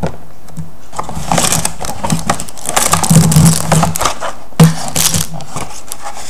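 Cardboard model-kit box being opened and its packaging handled: a run of rustling, crinkling and scraping from about a second in, with a sharp knock near the middle.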